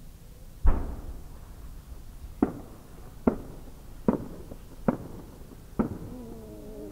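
Firework shell's 12-inch (shakudama) launch: a deep boom, then five sharp cracks about 0.8 s apart from the small bursts on its rising tail.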